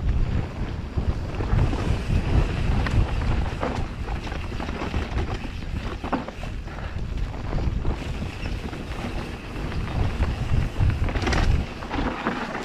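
Wind buffeting the microphone in a steady low rumble while riding a trail, with a few scattered knocks and rattles from the bike.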